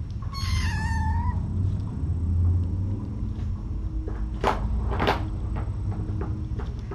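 A kitten gives a single meow, about a second long, dipping slightly in pitch. About four seconds later come two sharp clicks just over half a second apart, with a steady low hum throughout.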